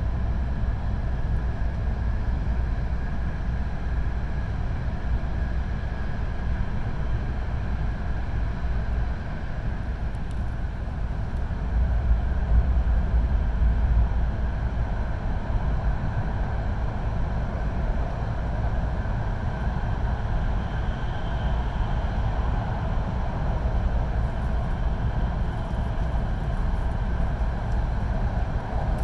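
Cabin noise of a Hokkaido Shinkansen train running at speed, heard from inside a passenger car: a steady deep rumble of wheels, track and running gear with airy rushing noise over it. It swells a little louder for a couple of seconds about halfway through.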